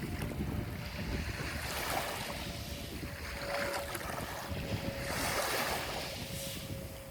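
Sea waves washing onto the shore, the surf swelling and falling back every couple of seconds, with wind buffeting the microphone. A faint steady tone runs underneath.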